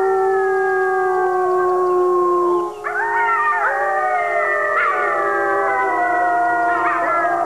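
Grey wolves howling in chorus: several long, steady howls at different pitches held together. From about three seconds in, shorter, higher howls rise and waver over them, with wolf pups joining the chorus.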